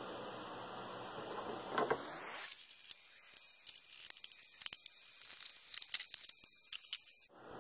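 Small metal parts clicking and clinking in quick, irregular succession as the arbor ends and spacers are worked off a lapidary machine's arbor shaft, after a couple of seconds of steady hiss; the sound cuts off abruptly near the end.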